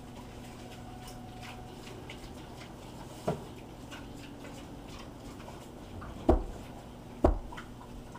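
Three dull knocks over faint scattered ticking and a low steady hum: a lighter one a few seconds in, then two loud ones about a second apart near the end.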